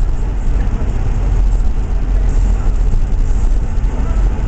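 Car driving on a snowy road, heard from inside: a steady low rumble of engine and tyres.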